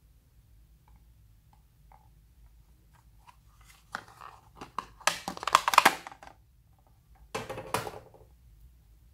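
Hard plastic pencil case being opened and its contents taken out: light plastic clicks, then two clusters of louder clattering and rattling about four and seven seconds in.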